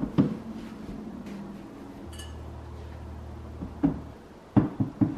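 Ceramic decor and a book being set down on wooden floating shelves: a knock at the start, a brief clink a couple of seconds in, then a quick run of four or five knocks and clinks near the end as a small ceramic bowl is placed.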